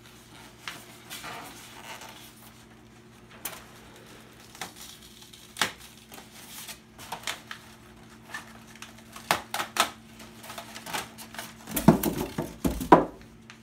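Styrofoam shipping box being opened and handled: the foam lid rubbing and knocking, with scattered clicks and paper rustling. A cluster of louder knocks and foam rubbing comes near the end as the lid is set down. A faint steady hum runs underneath.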